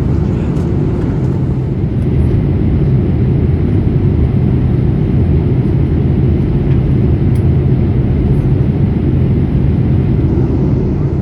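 Steady low rumble of Boeing 787-8 cabin noise heard from a window seat: engine and airflow noise, even and unbroken.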